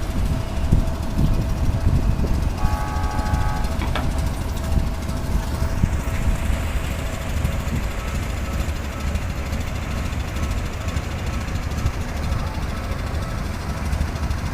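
Road traffic and vehicles running through a street-level tram crossing, a steady low rumble. A short horn-like pitched tone sounds about three seconds in.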